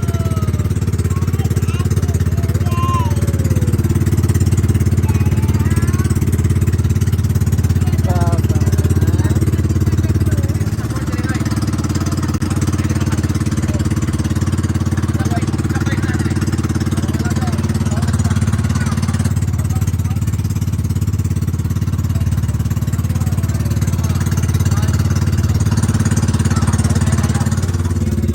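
Vehicle engine running steadily underway, a loud, even drone with a brief dip about eleven seconds in, heard from on board.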